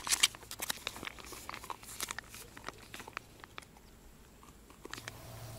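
Soft plastic pouch of sweetened condensed milk crinkling and crackling as it is squeezed out by hand, a quick run of clicks and rustles that thins out after about three and a half seconds.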